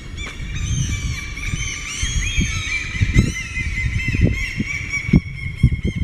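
Many gulls screeching at once from the rooftops, a dense chorus of overlapping high calls that is thickest in the middle. A low rumble and a few knocks sit underneath.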